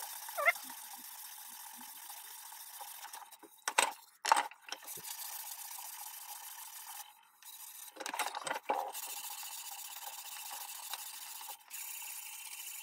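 Sandpaper rubbed by hand along the edge of a hardwood cutting board, a steady scratchy hiss. It pauses briefly a few times, with a few knocks around four and eight seconds in.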